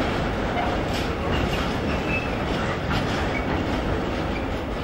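Freight train of Sfhimmns sliding-tarpaulin bogie wagons rolling slowly past at close range, wheels rumbling steadily and knocking over the rail joints. A few faint, short wheel squeals.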